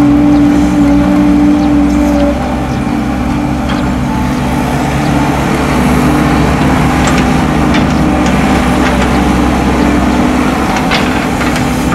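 Heavy diesel engines of an excavator and dump trucks running steadily, a continuous hum with low rumble that dips slightly about two seconds in. A few light knocks come through in the second half.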